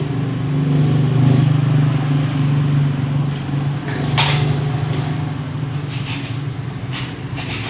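A steady low drone of a running engine or motor, swelling about a second in and then holding, with a sharp click about four seconds in.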